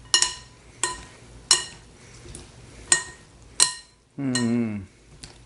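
A spoon knocking against the side of a glass mixing bowl while tossing a corn salad: five sharp clinks, each ringing briefly, with a soft stirring rustle of the kernels between them.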